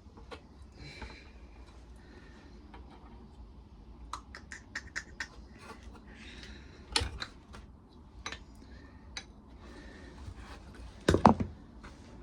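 Hand ratchet clicking as bolts are worked off a lawnmower engine, with light metallic clinks of tools and parts; a quick run of clicks about four seconds in and louder knocks around seven and eleven seconds.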